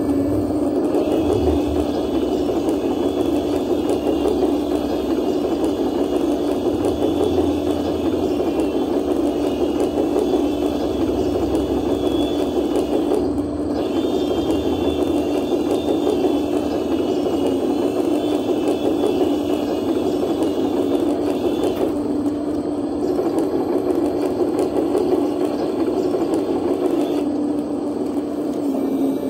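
Small electric motors and gearing of a radio-controlled construction model running steadily, a continuous mechanical drone with a higher whine that comes in for long stretches and drops out twice.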